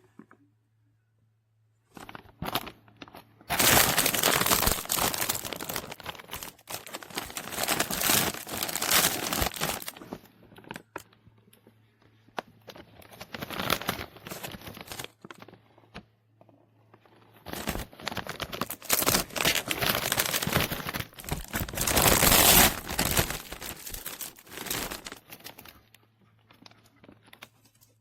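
Irregular rustling and crinkling, coming in several long stretches with short quiet gaps between them.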